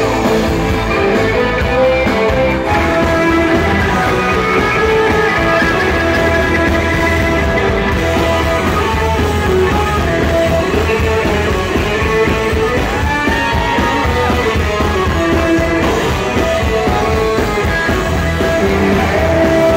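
A rock band playing live, an instrumental passage led by electric guitars over bass guitar.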